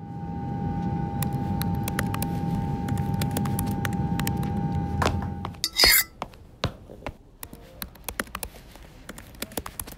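Foley-style room sound: a steady low hum with a constant tone and scattered light clicks, which cuts out abruptly about five and a half seconds in. Just after comes a single sharp, bright impact, the loudest sound here, and then sparse clicks over a quieter background.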